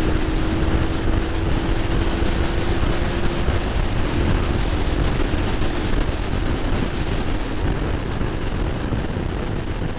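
Wind buffeting the microphone over the steady drone of a Honda Transalp motorcycle's engine at cruising speed.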